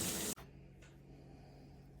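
Running water that cuts off abruptly about a third of a second in, leaving a faint steady low hum.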